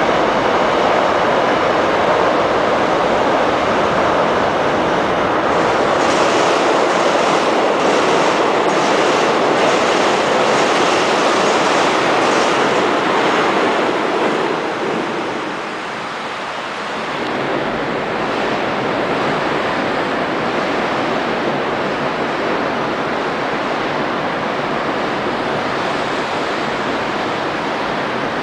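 Trains running across a railway bridge: steady wheel-and-rail noise, with a rapid series of clicks from the wheels over rail joints in the first half. The noise briefly drops, then another train's steady running noise carries on.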